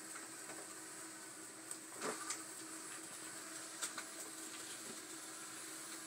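Robot vacuum cleaner running with a steady hum and a high whine. A few sharp knocks come about two seconds in and twice more near four seconds in.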